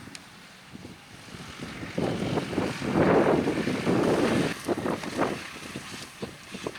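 Wind buffeting the microphone in gusts, loudest around the middle, over a farm tractor working.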